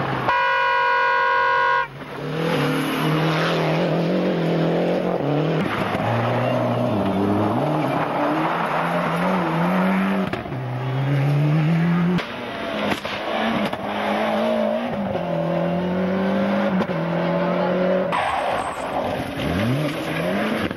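Rally car engine revving hard, its pitch climbing and then dropping with each upshift, over and over as it accelerates through the gears. At the very start a steady horn-like tone sounds for about a second and a half.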